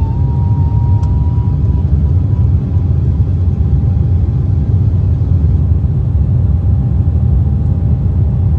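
Cabin noise of an Embraer E190LR in the climb after takeoff: the twin turbofan engines and airflow make a steady, deep rumble, with a faint whine that fades out about two seconds in.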